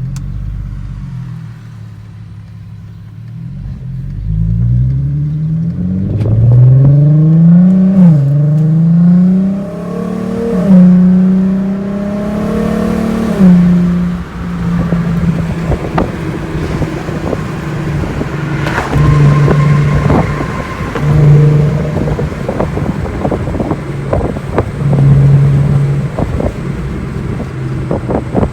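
Volkswagen Golf R32's 3.2-litre VR6 engine pulling hard through three gears, the revs climbing and dropping back at each upshift about eight, ten and thirteen seconds in, then running at steadier revs with short surges of throttle. Scattered clicks and knocks run under it.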